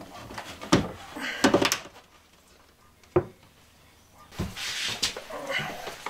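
Painted wooden cabinet door on European-style concealed hinges being handled and closed: a few knocks, then a single sharp click about three seconds in as the door shuts, followed by rustling.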